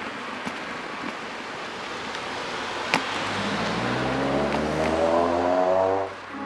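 Road traffic noise with a car's engine accelerating past, its pitch rising and growing louder over the last few seconds before cutting off abruptly. A single sharp click sounds about halfway through.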